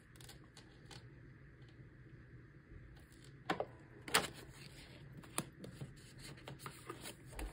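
Faint handling of paper: a banknote and paper envelopes being flipped through and tucked into a box, with a few light ticks and rustles, the sharpest two about halfway through.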